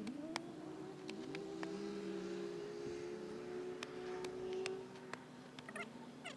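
A hoe chopping into clay soil: a few sharp strikes and a short rattle near the end. Under it runs a long steady whine that rises at the start and holds for about five seconds.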